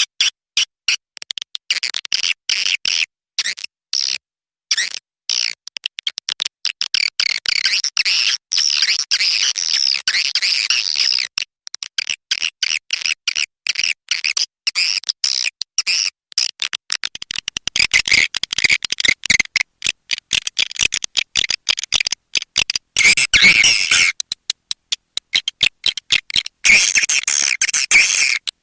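Swiftlet calls: rapid high-pitched chirps and twitters in dense runs, chopped by many short gaps, as played to lure swiftlets into a swiftlet house. The chirping grows louder and fuller about two thirds of the way in and again near the end.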